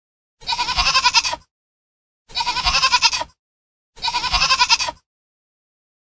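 Domestic goat bleating three times, each call about a second long with a fast quaver, separated by short silences.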